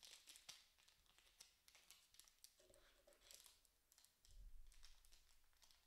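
Faint, scattered crinkles and clicks of an Upper Deck hockey card pack's foil wrapper as fingertips pick at its sealed end, the glued seam not yet giving way.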